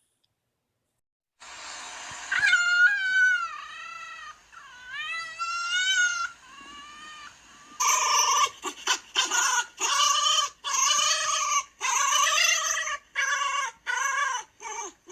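Fox calls. After a short silence come a few drawn-out, high-pitched whining calls that waver in pitch, then a fast run of short yelps, about a dozen, to the end.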